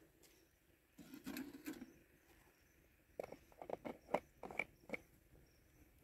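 Faint handling sounds of a metal thermos flask being moved and set down. There is a brief scuffing about a second in, then a quick run of light knocks and clinks in the second half.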